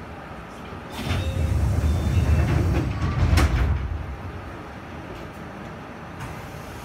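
Enshu Railway electric train standing at a station: a low rumble swells for about three seconds, ending in a sharp knock, then steady quieter running noise.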